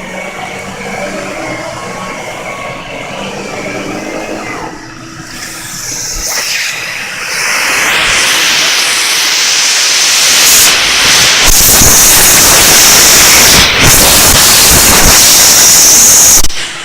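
Electrolux Silverado vacuum cleaner running with a steady motor hum. From about six seconds in, a loud rush of air builds into a strong hiss, then cuts off suddenly near the end.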